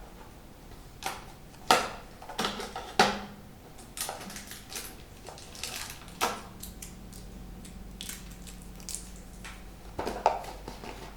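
A board game expansion box being opened and its contents handled: irregular rustling and crinkling of packaging with scattered light taps and knocks of cardboard and components.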